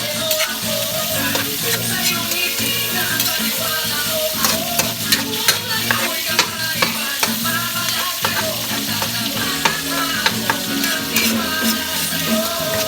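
Food sizzling in a frying pan, with a utensil clicking and scraping against the pan as it is stirred. Music plays underneath.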